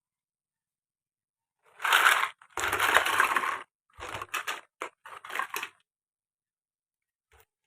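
Small plastic toys clattering and rattling as they are tipped out and scattered: a long rattle about two seconds in, then a few shorter clatters.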